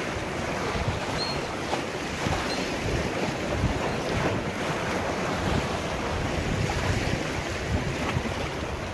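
Sea waves washing and breaking against the rocks of a jetty, with strong wind buffeting the microphone.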